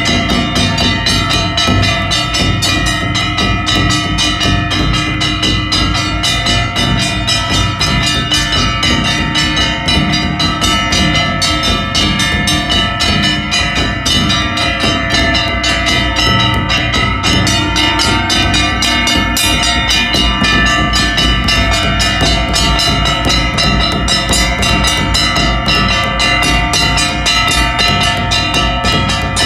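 Large brass gongs hung from a carried pole, struck rapidly and ringing on continuously, together with a huge kettle drum beaten with two sticks: a loud, dense clangour of metal over heavy drumbeats.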